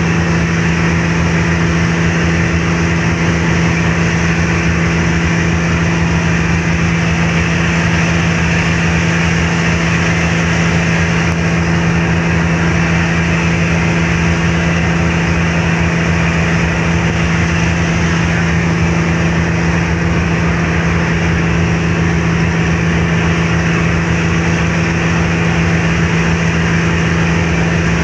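Car ferry's engines running steadily underway: a constant low hum under an even rushing noise of wind and water.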